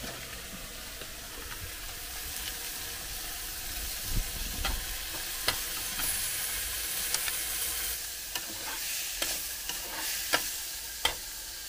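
Paneer cubes and tomato frying in a steel saucepan on a portable gas stove, with a steady sizzle. From about four seconds in, a metal spatula clicks and scrapes against the pan as the paneer is stirred in.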